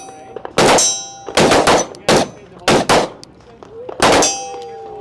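A compact .45 pistol with a ported barrel fired about six times at an unhurried, uneven pace. Thin ringing tones follow some of the shots, typical of steel targets being hit.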